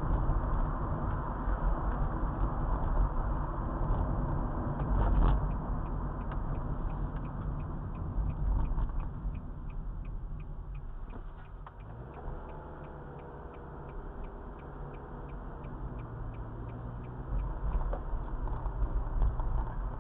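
Car running, heard from inside the cabin through a dashcam: steady road and engine noise, with the turn-signal indicator clicking about twice a second from about five seconds in. The noise drops about halfway through as the car slows to a stop and the engine idles, then rises again near the end as it pulls away.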